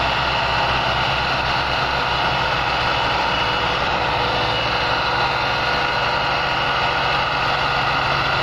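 Tractor diesel engines running steadily under heavy load as a Massey Ferguson 260 pulls a fully loaded trolley, with a Belarus 510 running alongside.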